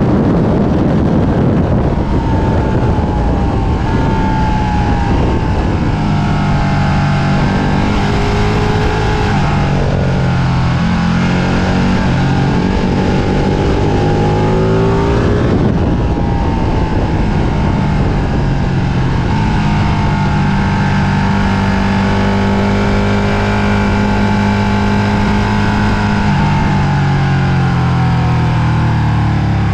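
Ducati Panigale 1299 S's 1285 cc Superquadro V-twin engine under hard riding on a racetrack. Its pitch rises and falls repeatedly as the bike accelerates through the gears and slows for corners, over heavy wind rush on the tank-mounted microphone.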